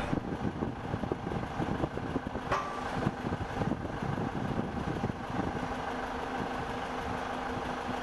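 Steady machine hum with a rumbling low end and a few held tones.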